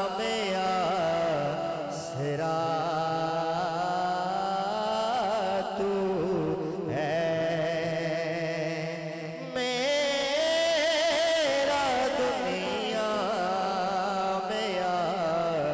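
A man singing an Urdu naat into a microphone, drawing out long wavering melismatic notes with few clear words.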